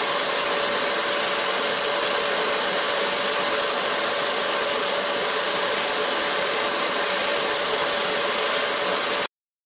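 Motor-driven wire brush wheel spinning steadily with a steady hum, scouring a small toothed metal part held against it to clean off rust and dirt. The sound cuts off suddenly near the end.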